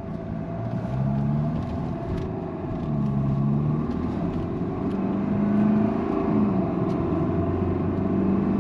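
Fiat Toro's diesel engine heard while driving, its revs climbing and dropping back several times as the truck accelerates and shifts, over a steady road rumble.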